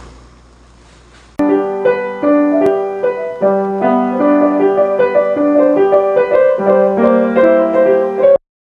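Yamaha grand piano being played, starting about a second and a half in: a run of single notes over held low notes. It stops abruptly near the end.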